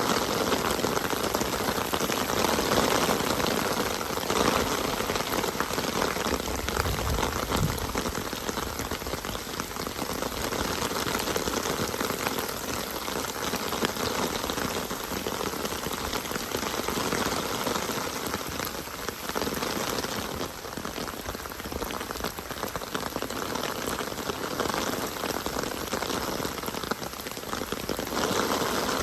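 Steady rain falling, a dense patter of drops on surfaces, with running stream water mixed in.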